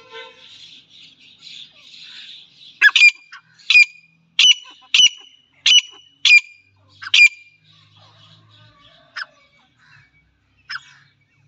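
Captive francolin (teetar) calling. After soft twittering, it gives a run of about eight loud, sharp, high calls roughly two-thirds of a second apart, then a few fainter calls spaced further apart.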